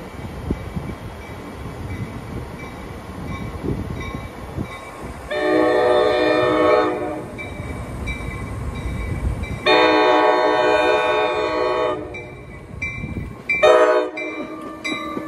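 NJ Transit commuter train approaching with a low rumble, then sounding its horn: two long blasts and a short one, with a fourth starting at the very end. This is the long-long-short-long grade-crossing signal.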